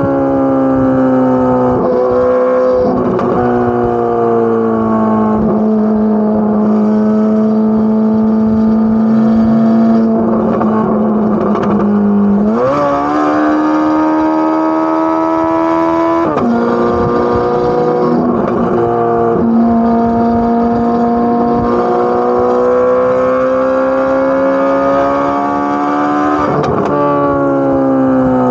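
Corvette C8 Z06's flat-plane-crank V8 exhaust running at moderate revs with a steady droning note. Its pitch jumps up about twelve seconds in and drops back a few seconds later. It then climbs slowly and drops again near the end.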